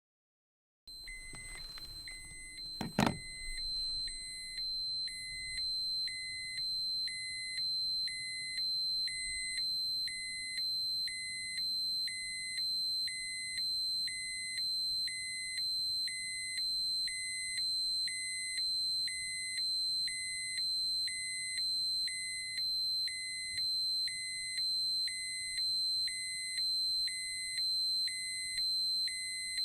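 Radiation dosimeter alarm: a steady high tone with a lower beep pulsing about once a second over it. A sharp click about three seconds in is the loudest moment.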